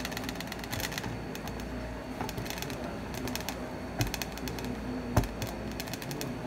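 Grapefruits being handled and set into a stainless steel bowl: a couple of knocks and bursts of quick light clicking, over a steady low hum.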